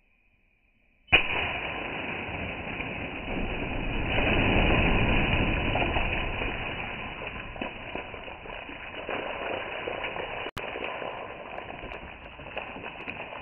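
Water balloon popped with a pin, heard in slowed-down slow-motion audio: a sudden bang about a second in, then a long, low, muffled rush of splashing water that swells and slowly fades.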